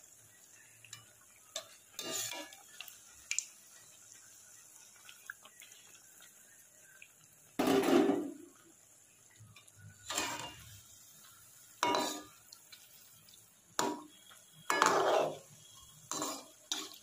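Perforated metal slotted spoon scraping and clattering against a metal kadai as malpua are turned in hot oil: about eight separate clatters at uneven intervals, the loudest about eight seconds in and another near fifteen seconds. Between them, a faint steady hiss of the frying oil.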